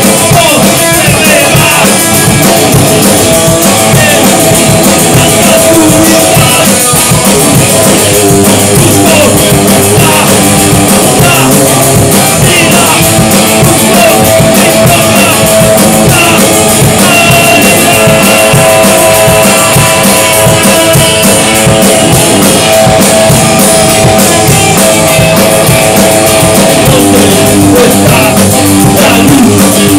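Rock band music with guitar and a drum kit, loud and dense throughout.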